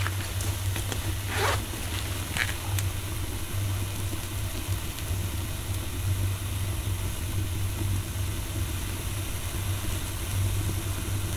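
Wood fire burning in a small metal stove: a steady low rumble of the draft, with a few crackles and pops in the first three seconds.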